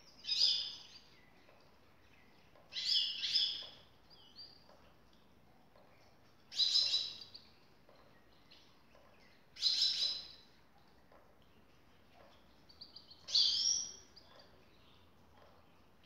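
Caged grey-headed goldfinch singing: five short, bright, high-pitched phrases, one every three to four seconds.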